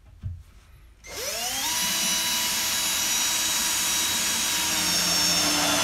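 Battery-powered cordless drill driving a construction screw at an angle through a 2x4 stud into the bottom plate. After a light knock, the motor spins up about a second in, its whine rising in pitch, then runs steady under load for about five seconds.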